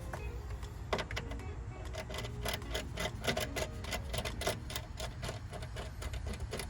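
Rapid, even clicking of a hand ratchet turning a bolt, starting about two seconds in and running at roughly five clicks a second, over a low steady hum.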